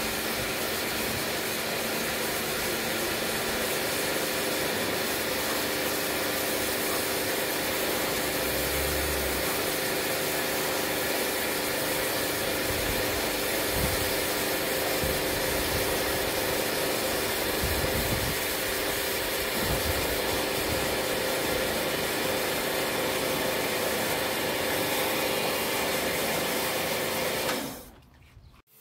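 Pressure washer running steadily, its high-pressure water jet hissing as it sprays a garden chair and patio, until it cuts off near the end.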